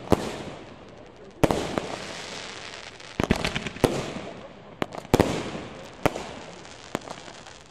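Aerial fireworks display: a string of sharp bangs at irregular intervals, about seven in all, each trailing off into a fading crackle as the bursts spread.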